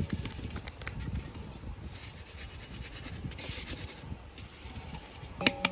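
A hand rubbing dry flour through a wire-mesh sieve, a soft, steady scratchy rubbing with small ticks. Near the end there is a short metallic clink with a brief ring.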